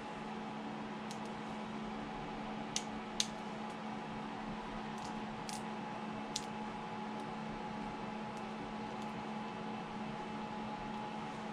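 Small sharp clicks of cured resin print supports being snapped off a 3D-printed model by hand, about half a dozen in the first six or seven seconds, the two loudest close together about three seconds in. A steady background hum runs under them.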